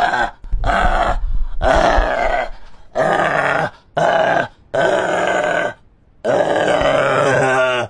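A man wailing and groaning in an exaggerated mock cry: a string of drawn-out cries with bending pitch and short pauses between them.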